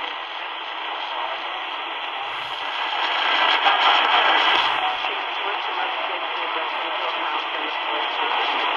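C.Crane CC Skywave SSB 2 portable radio's speaker on 690 kHz AM, playing a weak, distant station almost buried in a steady hiss of static, with faint station audio coming through near the end. The listener takes the station for CKGM Montreal, some 760 miles off.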